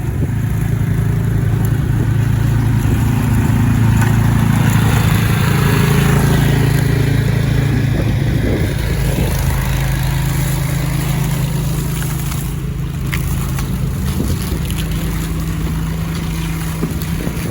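An engine running steadily at close range, a snow-clearing machine at work.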